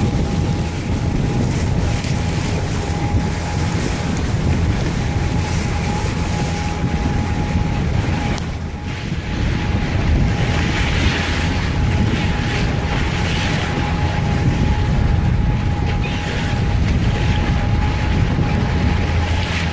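A boat's engine runs steadily, a constant low hum with a thin steady whine above it. Wind buffets the microphone over it.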